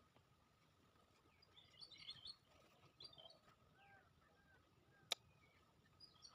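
Faint bird chirps and calls in a few short bursts, with a single sharp click about five seconds in.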